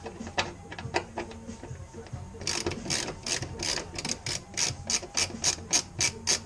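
Ratchet wrench clicking as it backs out a bolt on the Volvo 240's fuel pump carriage. A few scattered clicks come first, then from about two and a half seconds a steady run of quick clicks, about four a second.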